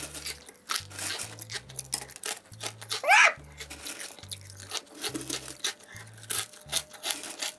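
Crisp crunching of very thin potato sticks chewed close to the microphone, many short crunches in a row, with fingers scooping through the pile of sticks. A quiet background music bass line runs underneath, and a short rising tone sounds about three seconds in.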